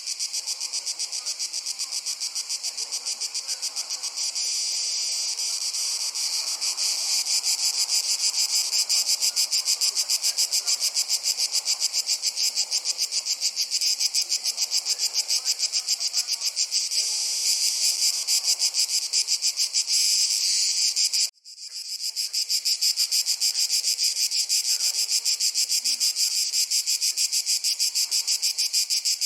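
Crickets chirping in a dense, continuous chorus of fast, high pulses, growing a little louder over the first several seconds. About two-thirds of the way through, the sound cuts out for a split second and then fades back in.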